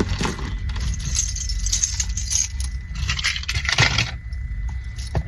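Irregular clinking and rattling of small hard objects being handled, over a steady low rumble.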